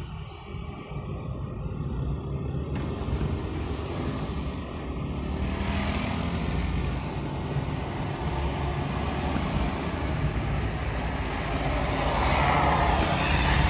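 Engine and road noise heard from inside a moving vehicle, a steady low rumble that grows louder about five seconds in.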